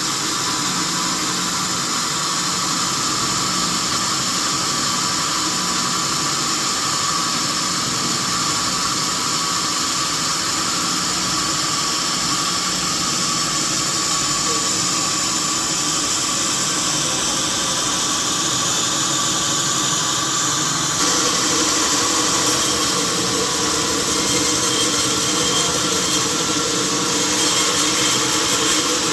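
Sawmill machinery running steadily with a continuous mechanical whine. About two-thirds of the way through it grows louder and brighter.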